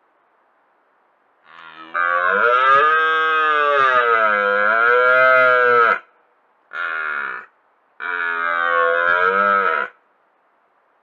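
Red deer stag roaring, the rutting call a stag gives to advertise himself to hinds and rivals. The sequence is one long, wavering roar of about four seconds, a short one, then a third of about two seconds.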